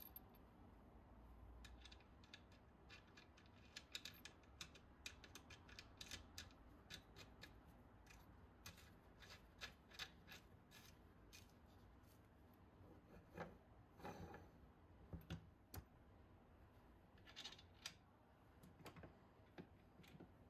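A nut being spun by hand onto the threaded axle end of a steel trolley-jack wheel: a run of faint, irregular light metal clicks and ticks, with a short scrape about two-thirds of the way through.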